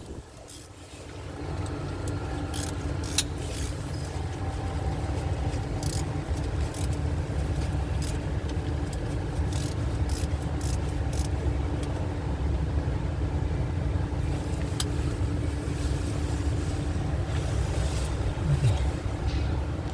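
A vehicle engine idling steadily, a low even rumble with a constant hum, with a few scattered light clicks and taps on top.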